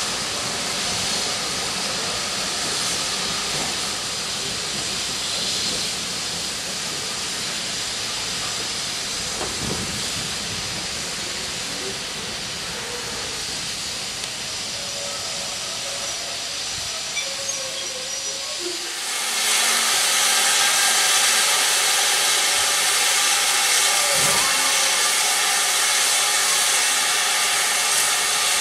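Steam locomotive hissing steam while passenger coaches roll slowly past on the rails. About two-thirds of the way through, a much louder, brighter steady hiss of steam starts suddenly and carries on.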